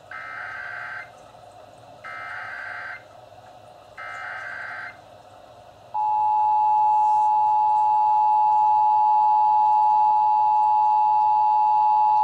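Emergency Alert System test alert: the digital SAME header, three bursts of data tones of about a second each, a second apart. About six seconds in, the loud, steady two-tone EAS attention signal starts and holds.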